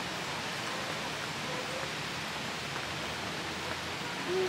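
Steady rain falling, an even hiss with no rises or breaks.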